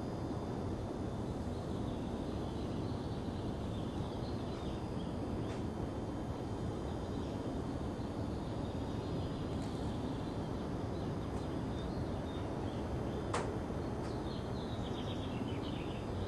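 Steady low outdoor rumble with faint bird chirps here and there, a quick run of twittering near the end, and one sharp click about thirteen seconds in.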